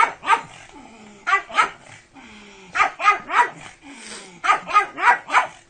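Doberman pinscher barking in short bursts of two to four barks, one burst about every second and a half.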